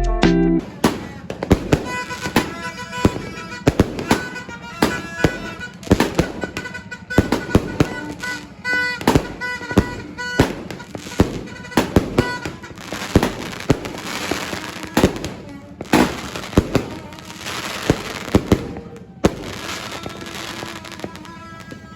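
A 16-shot fireworks cake firing: a rapid series of sharp bangs, with stretches of crackling hiss about two-thirds of the way in, under background music.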